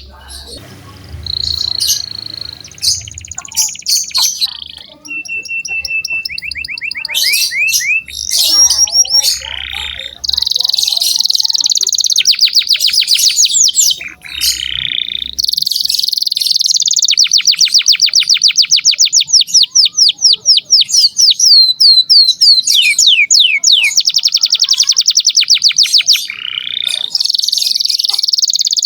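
Domestic canary singing a long, loud song of rapid trills and rolls, with brief pauses between phrases.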